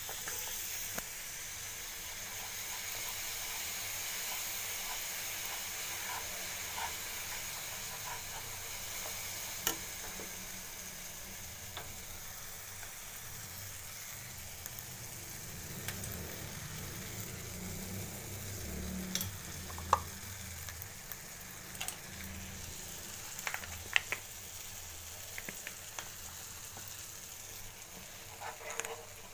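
Milk-and-flour white sauce sizzling and bubbling in a frying pan as a steel spoon stirs it. The spoon now and then clicks sharply against the pan, most often in the second half.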